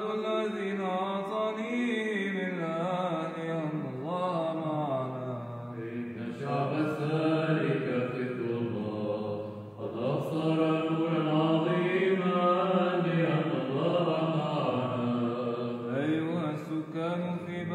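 Byzantine chant: a male voice chanting a slow, ornamented melody with long held and gliding notes, with short breaks about six and ten seconds in.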